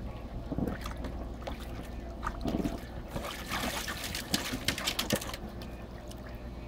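Swimming-pool water splashing and trickling in irregular bursts, thickest in the middle, over a steady low hum.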